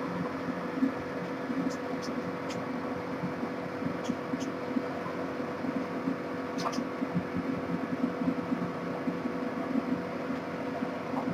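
Steady background hum with a constant tone. A few faint clicks come from a drawing compass being set and swung to draw a circle on paper.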